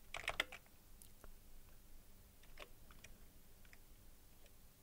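Computer keyboard keys being typed faintly: a quick run of several keystrokes near the start, then single keystrokes every second or so.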